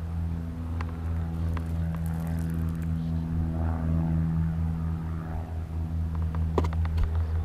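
A steady low engine hum, one even droning tone with its overtones, with a few light clicks over it.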